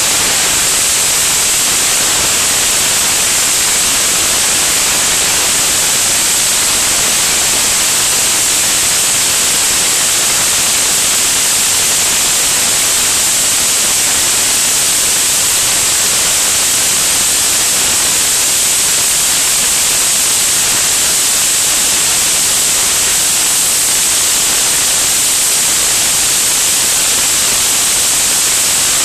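Loud, steady rushing hiss of airflow over a wing-mounted camera on an aircraft in flight, with no change throughout and no engine note standing out.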